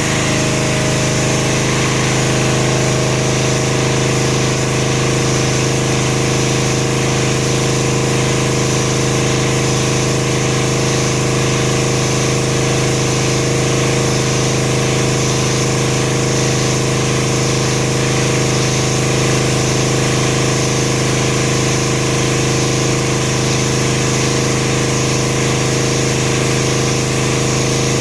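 Pressure washer running steadily: a constant engine-and-pump drone with the hiss of the water spray.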